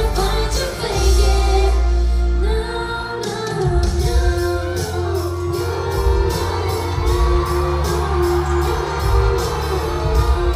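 Live pop-rock music with a woman singing into a handheld microphone over loud band backing with heavy bass, the bass dropping out briefly a few seconds in. Recorded from the audience in a large concert hall.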